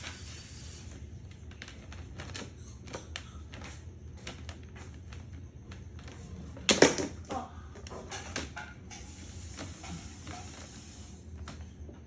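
Plastic parts of a stand fan clicking and knocking as they are handled and fitted together, with a louder clatter about seven seconds in.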